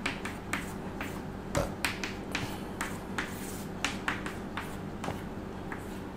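Chalk tapping and scratching on a chalkboard as an equation is written: an irregular run of sharp clicks, about three or four a second.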